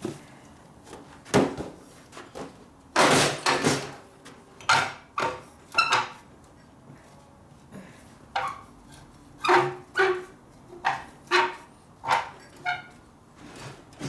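Metal being hammered and worked in a bench vise: irregular knocks and clanks, some ringing briefly, with a longer clattering burst about three seconds in.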